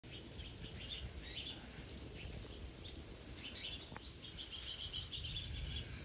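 Small songbirds chirping repeatedly in short high calls, over a steady low rumble of background noise.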